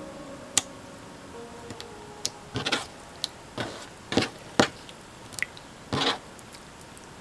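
Slime being stretched, poked and pressed by hand, giving a string of wet squelches and sharp sticky pops, about ten in all. Faint music notes sound during the first second and a half.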